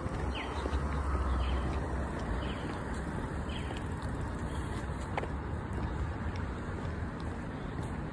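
Outdoor street ambience: a steady hiss with wind rumbling on the microphone, heaviest about a second in. A short, high, falling chirp repeats about once a second over the first few seconds, then stops.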